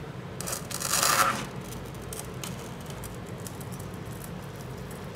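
A brief rubbing scrape about a second in, from hands handling the opened iPad and its loose LCD panel, followed by a few faint clicks, over a steady low hum.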